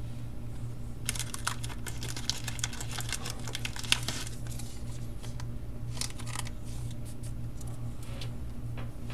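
Trading cards being handled on a table: a run of quick light clicks and rustles of card stock, with a few more about six seconds in, over a steady low hum.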